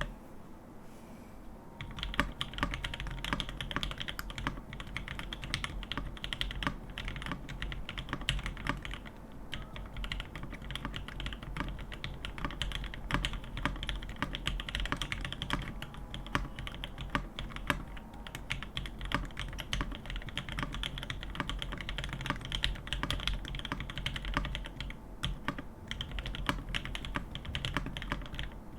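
Fast, continuous typing on a CannonKeys Devastating TKL mechanical keyboard built with an FR4 plate, lubed and filmed Mauve switches, lubed Zeal stabilizers and GMK Dark keycaps. The keystrokes start about two seconds in.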